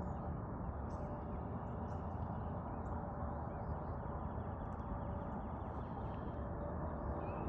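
Wild birds singing outdoors: scattered short high chirps and a rapid trill of repeated notes for a few seconds past the middle, over a steady low rumble.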